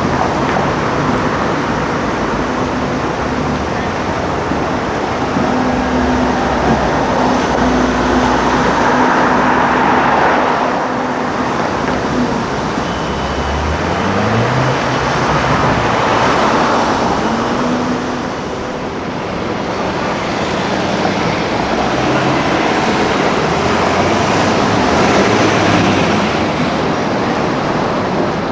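Busy city street traffic, with vehicles passing one after another in three swells. Around the middle, an engine's pitch rises twice as a car accelerates.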